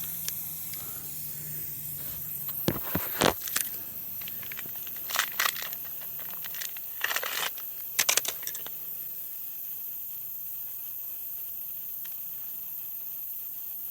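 Scattered clicks and rustles of a tire plug strip being threaded through the eye of a tire-plug insertion tool, in four short clusters, over a steady hiss.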